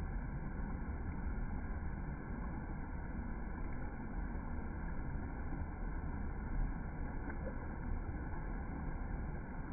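Steady low rumbling noise, unbroken and without distinct events.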